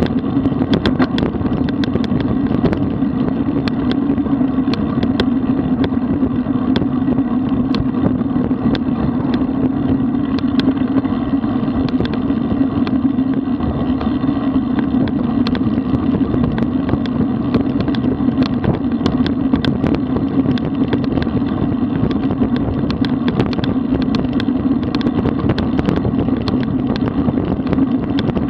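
Steady rush of wind and road noise on a road bike's camera microphone while riding at about 33 km/h, with many small clicks and rattles scattered throughout.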